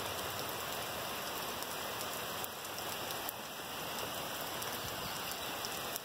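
Steady rain falling on trees and a grassy yard: an even hiss with a few faint drop ticks.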